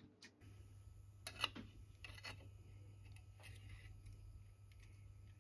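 Small metal lathe switched on, its motor and drive running with a steady low hum from about half a second in, while several sharp metallic clicks and clunks come from the carriage controls being worked, the loudest about one and a half seconds in.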